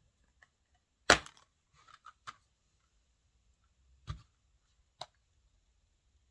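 Sharp plastic clicks and knocks from a Blu-ray case being handled: one loud snap about a second in, then a few smaller clicks spread over the next four seconds.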